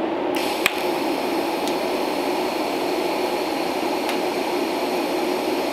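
TIG welding arc tacking a steel patch panel onto a car body: a steady hiss that starts just after the beginning and holds almost to the end. A sharp click comes about half a second in, with a couple of fainter ticks later, over a steady low hum.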